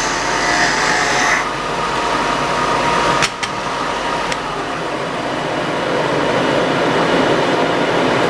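Portable benchtop belt sander and dust collector running together, a steady motor and rushing-air noise. A hissier stretch in the first second and a half, then a few sharp clicks about three seconds in.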